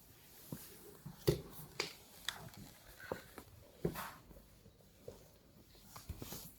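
Irregular light clicks and taps of a snapping turtle's claws on the floor as it crawls about, roughly one or two a second.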